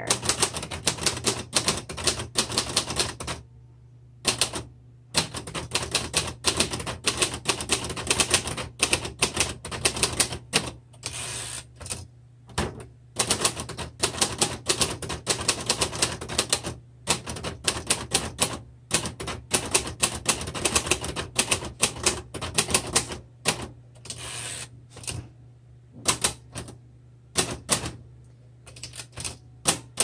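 Fast typing on a Royal Heritage III manual typewriter: quick runs of sharp keystroke clacks as the typebars strike the platen, broken by a few short pauses.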